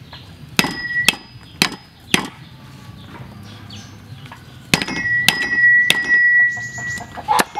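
A heavy cleaver chopping on a chopping block: about eight sharp strikes, four close together, then a pause, then four more. After several strikes the steel blade rings on with a high, clear tone.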